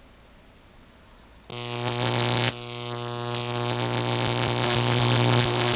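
Faint hiss, then about a second and a half in a loud, steady buzzing hum with hiss starts and holds.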